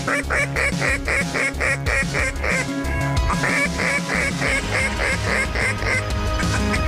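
Duck quacking in fast runs of about four calls a second: one run, a short break, a second run, and a third beginning near the end. Background music plays underneath.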